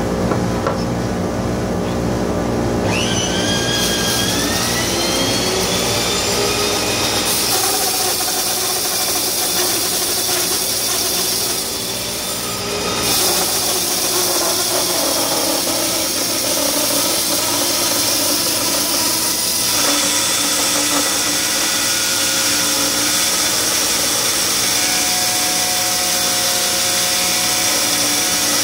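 Resaw bandsaw running and ripping a board lengthwise into thin stock, a steady machine noise with the blade cutting through the wood. A whine rises in pitch about three seconds in.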